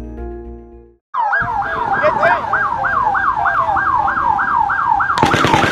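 Background music fades out in the first second. Then an emergency vehicle siren sounds in a fast yelp, rising and falling about three to four times a second, heard from inside a car over steady cabin noise. Near the end a rapid burst of sharp cracks cuts in over the siren.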